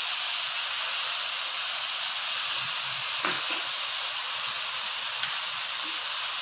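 Shredded cabbage, carrot, capsicum and onion sizzling steadily in hot oil in a pan, with one light tap a little after three seconds in.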